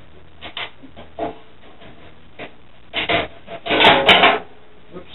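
Parts being worked loose inside a steel desktop PC case: a few short metallic scrapes and knocks, the loudest cluster about four seconds in.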